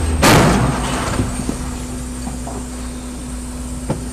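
Volvo semi-truck tractor sliding into and past the car: a loud sudden crash about a quarter second in, then steady engine and road noise with a low hum, and two light knocks near the end.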